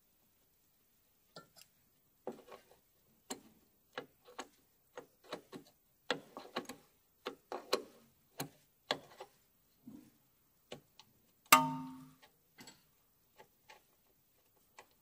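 Scattered small metallic clicks and taps of a wrench and fingers working the brake line fitting and hose bracket, with one louder ringing metal clank about eleven and a half seconds in.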